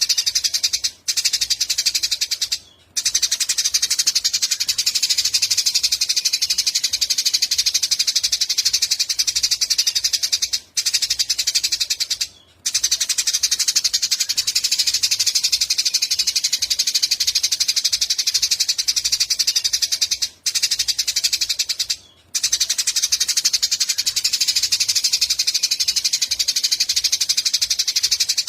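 A small songbird gives a fast, continuous high trill, broken by short pauses that come in pairs about every ten seconds, as in a looped recording.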